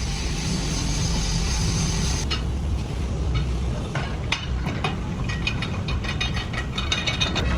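Tyre-repair workshop noise over a low steady rumble: a hiss that cuts off about two seconds in, then scattered metal clicks and clinks.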